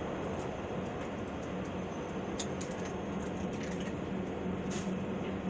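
Steady background hum and hiss, with a few faint light clicks as a cracked egg's shell is pulled open and the egg drops into a plastic bowl.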